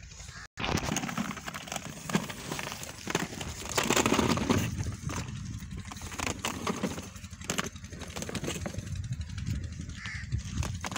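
Plastic wheels of a toddler's ride-on swing car rolling over a gritty dirt path, an uneven rumble with many scattered clicks and crackles.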